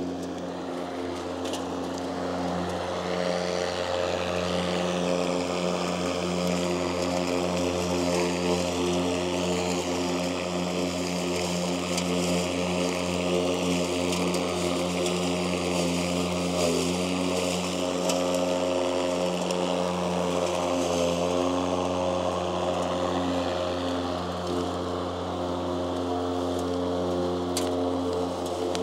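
Mowrator S1 remote-controlled battery lawn mower running as it cuts grass. Its spinning blade and motor make a steady hum with a rushing of air and clippings.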